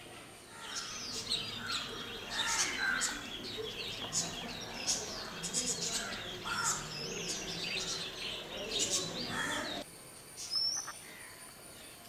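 Oriental magpie-robin singing: a long, varied run of clear whistled phrases with rising and falling notes, which stops abruptly near the end, followed by a couple of short high notes.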